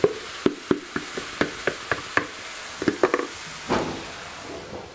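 Chicken in teriyaki sauce sizzling on a hot cast-iron Dutch oven lid. A wooden spatula clicks and scrapes against the iron about a dozen times in the first three seconds as the meat is spread around, then the steady sizzle carries on alone.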